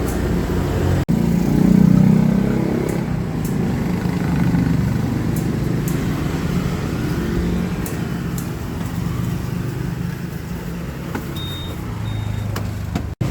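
Low steady rumble of road traffic, with two short high beeps near the end.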